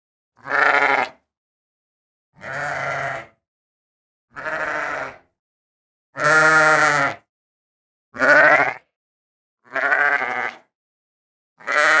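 Sheep bleating: a series of seven separate quavering bleats, each under a second long, about every two seconds with silence between, the loudest two near the middle.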